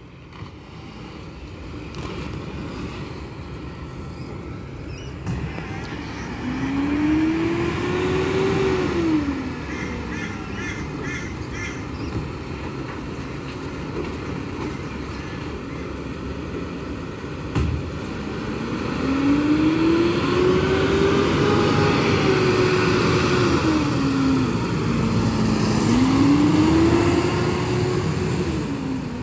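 Garbage truck's diesel engine running with its engine fan, revving up and dropping back three times as the truck pulls away between stops.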